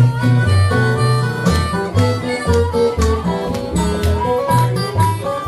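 Live acoustic Delta blues played instrumentally, before any singing: acoustic guitar keeping a steady bass pulse of about two notes a second, with sustained melody notes above.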